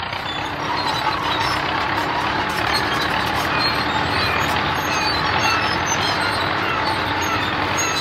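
Cartoon road roller's engine, a heavy-vehicle sound effect, running steadily as the machine drives in. It grows louder over the first second, then holds level.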